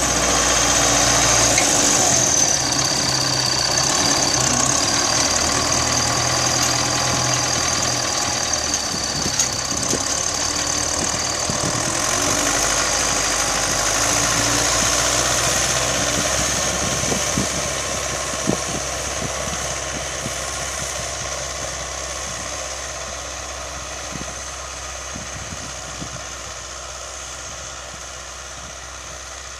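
Belarus MTZ-82 tractor's four-cylinder diesel engine running steadily as it pulls a spring-tine cultivator through the soil. It is loud at first and grows fainter over the second half as the tractor moves away.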